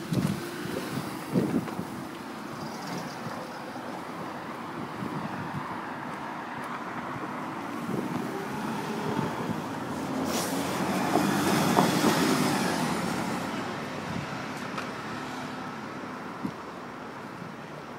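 A car passing by on the road: its engine and tyre noise swells to a peak about twelve seconds in, then fades away. A single sharp crack sounds just before the peak.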